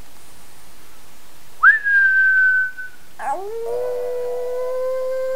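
A short, high whistle held for about a second, then, about three seconds in, a Chihuahua's long howl on one steady pitch.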